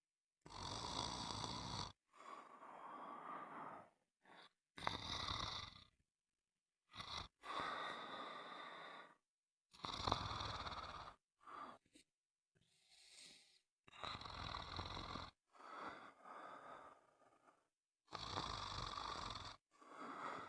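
Snoring: rasping snores that repeat about every four seconds, each loud rasp followed by a softer one, with abrupt dead-silent gaps between them.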